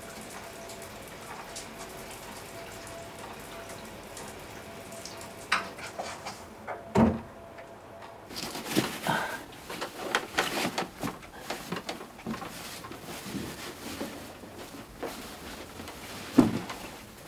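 Water running steadily in the background, then a door shutting with a thump about seven seconds in. After that, bed linen rustles and is shaken out over a mattress, with a few soft thumps.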